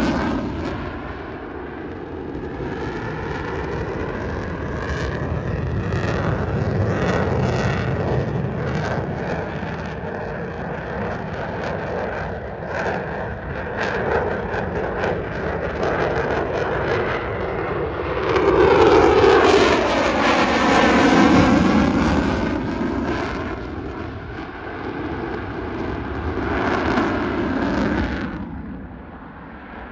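Jet noise from an F-22 Raptor's twin turbofan engines as it flies past. The noise swells and fades with a sweeping, phasing sound and is loudest about two-thirds of the way in, as the jet passes closest.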